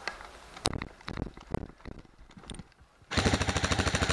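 Airsoft M4 rifle firing a rapid full-auto burst, starting about three seconds in after a few scattered knocks.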